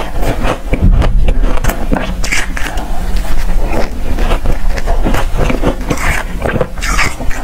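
Close-miked biting and chewing of soft, powdery frozen ice and freezer frost: a dense run of crisp crunches and crackles, with a metal spoon scraping ice from the plastic bowl.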